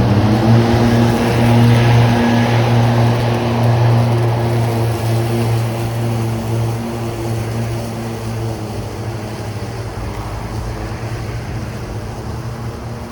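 A motor running with a steady, pitched hum. It rises in pitch just after the start, then holds steady and slowly gets quieter.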